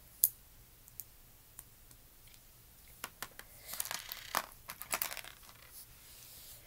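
Small plastic building pieces being handled: a sharp click near the start, a few lone clicks, then a busy run of clicks and crinkling from about three to five and a half seconds in.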